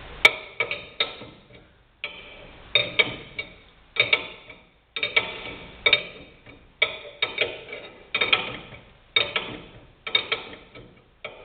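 Ratchet wrench clicking in repeated strokes, about one a second, each stroke a short run of sharp clicks. It is drawing the compressed front coil spring down until it seats on the bottom of the trunnion.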